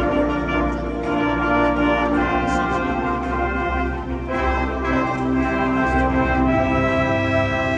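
Orchestral background music led by brass, with sustained chords and changing notes.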